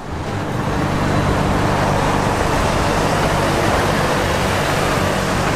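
Steady road-traffic noise, rising within the first second and then holding steady.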